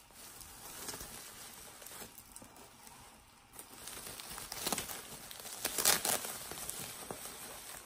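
Packaging being unwrapped and handled, a crinkling rustle with two louder bursts a little past halfway.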